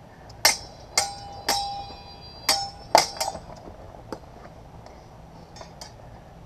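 Sword blades clashing in a quick exchange of sparring: about six sharp clashes in the first three and a half seconds, several leaving a ringing tone, then a few faint clicks.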